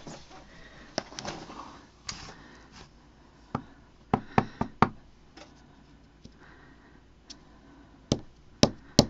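Sharp wooden taps of a small wood-mounted rubber stamp knocked on an ink pad and pressed onto a paper tag on a tabletop: single taps, a quick run of four a little after four seconds in, and more near the end, with soft rustling of handling in between.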